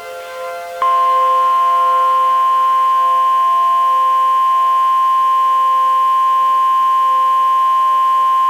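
NOAA Weather Radio-style 1050 Hz warning alarm tone: a single steady high-pitched tone that starts about a second in and holds unchanged, the attention signal that comes before an emergency alert message.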